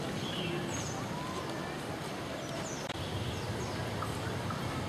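Outdoor ambience: a steady background hiss with faint, short bird chirps and whistles scattered through it, and a single click about three seconds in.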